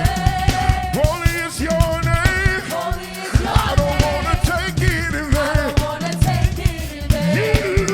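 Live gospel praise music: a singer's voice sliding and wavering in pitch over a band with a drum kit keeping a fast, steady beat.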